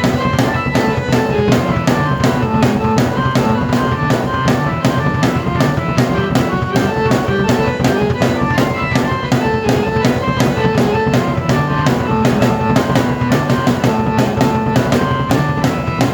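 A drum kit and a keyboard played together: a steady, driving beat of bass drum and snare under a keyboard melody of held notes, running without a break.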